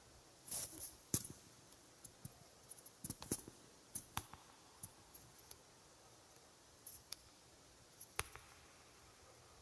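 Faint, irregular clicks and ticks, a dozen or so spread unevenly, with a short rustle about half a second in; no music is playing.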